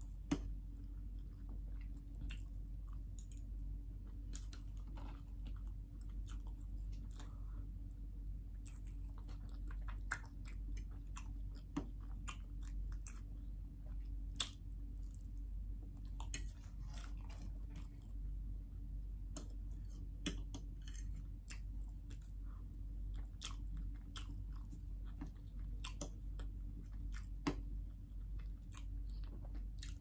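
Close-miked chewing and wet mouth sounds of someone eating soft cake with a fork, with a few sharp clicks scattered through, over a low steady hum.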